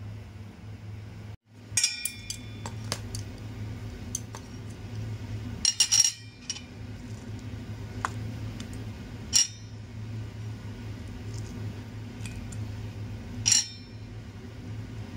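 Kitchen utensil clinking against a stainless steel bowl and a plate while chopped onions are added to cooked squash: a handful of separate sharp clinks, several close together about six seconds in, over a steady low hum.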